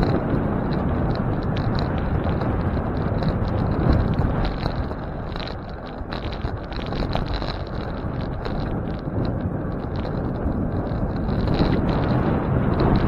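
Wind rushing over the microphone, with tyre and road noise from a bicycle being ridden. The noise eases a little about six seconds in.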